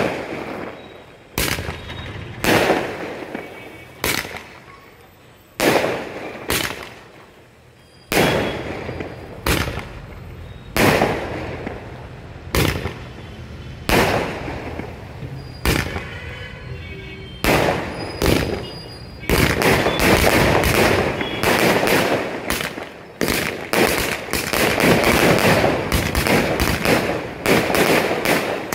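Multi-shot aerial fireworks cake firing: shell bursts bang about once a second, each followed by a trailing crackle. About two thirds of the way in they turn into a rapid, dense volley of bangs.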